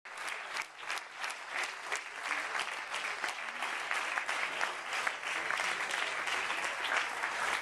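A crowd clapping: many quick overlapping hand claps that swell over the first few seconds and then hold.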